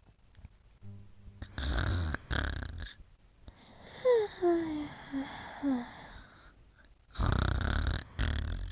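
A sleeping pet snoring in two long breaths, one early and one near the end. In between come several short high whimpers that slide down in pitch, as it dreams.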